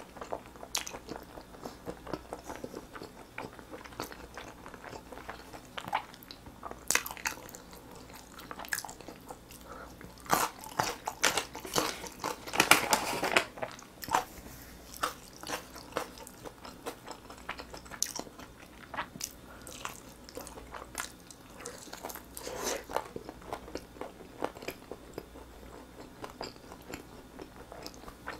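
Close-miked eating: a person chewing and biting into sauced grilled chicken drumsticks, a run of irregular clicks, busiest and loudest about ten to fourteen seconds in.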